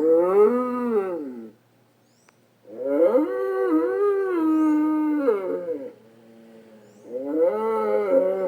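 Vocalisations of an animated bull character: three drawn-out pitched calls that bend up and down in pitch. The middle call is the longest, about three seconds; the last is still going at the end.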